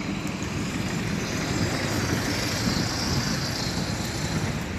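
Street traffic with a city bus driving past: steady engine and tyre noise, with a hiss that swells midway and eases near the end.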